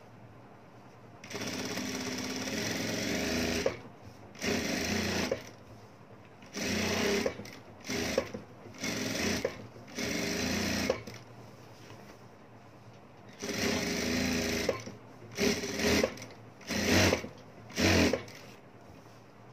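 Single-needle lockstitch sewing machine fitted with a gathering foot, stitching along a ruffle strip to gather it. It runs in about a dozen stop-start bursts: the first about two and a half seconds long, the rest shorter, closer together near the end.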